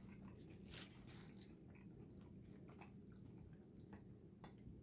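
Near silence with faint, scattered soft clicks of a person chewing a soft tamarind candy.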